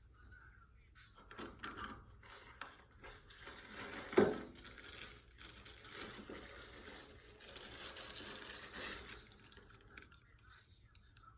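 Rustling and handling noise, with one sharp knock about four seconds in.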